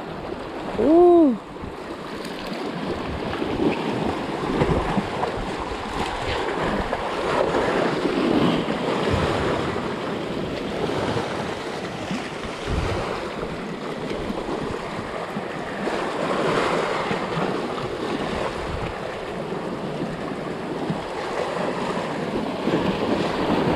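Surf washing and breaking over shoreline rocks, with wind buffeting the microphone. A brief shout rises and falls about a second in.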